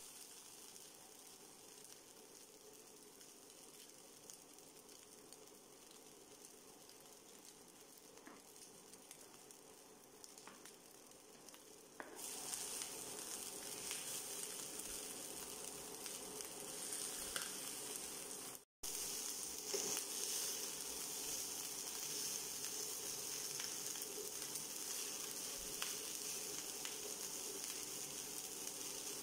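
Fried rice sizzling in a hot frying pan as a wooden spatula stirs and scrapes through it. About twelve seconds in the sizzle turns suddenly louder, as peas and carrots go into the pan, and it cuts out for a moment a few seconds later.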